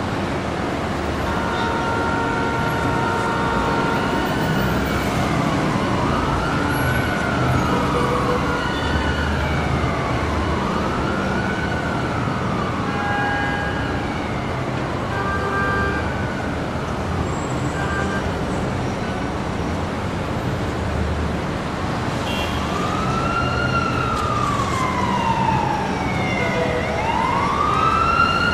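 City traffic rumbling steadily, with car horns held near the start and again briefly midway, while an emergency-vehicle siren wails up and down about every second and a half, fades, and comes back in a long slow sweep near the end.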